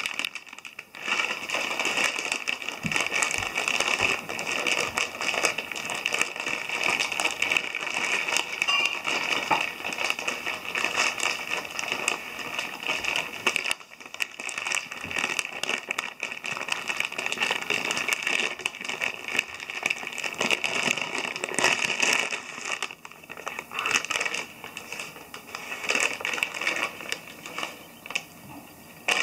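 A Cheetos snack bag crinkling and crackling almost without pause as a dog roots around with its head inside it. The crinkling briefly drops out about halfway through and is quieter in stretches near the end.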